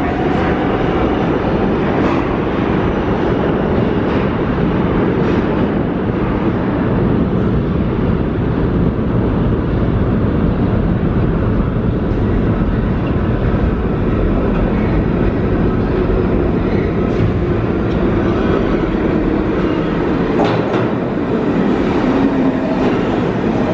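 New York City subway train of R46 cars approaching through the tunnel and pulling into the station, its wheels and running gear running loud and steady on the rails. A few sharp clicks come near the end as it reaches the platform.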